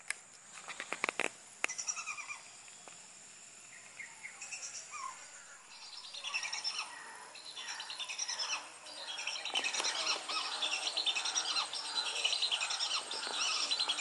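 Birds calling in many quick, chirping notes, building from about six seconds in and growing denser toward the end. A few sharp clicks and rustles come in the first two seconds.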